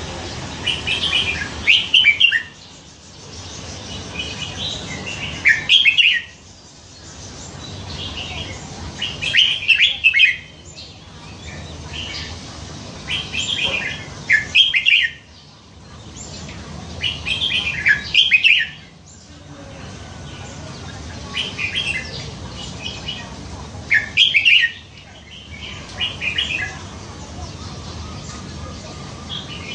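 Red-whiskered bulbul singing, a short song phrase of quick notes repeated about every four seconds.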